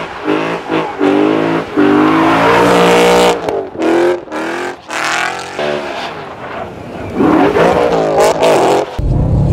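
BMW E92 M3's V8 revving hard as the car drifts through snow. The pitch climbs and falls repeatedly, with brief drops where the throttle lifts. Near the end it switches to a deeper, denser engine noise.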